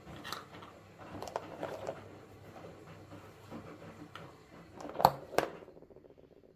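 Miniature toy kitchen utensils and their card-and-plastic packaging handled by hand: light rustling and small clicks, with two sharper clicks about a half-second apart near the end.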